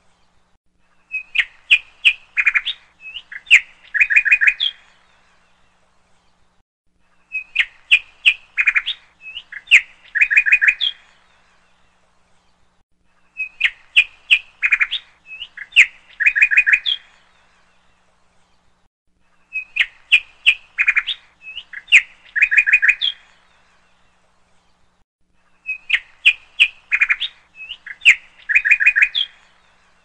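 Recorded birdsong looped as a soundtrack: the same three-second phrase of rapid chirps and trills repeats about every six seconds, five times, with short silent pauses between.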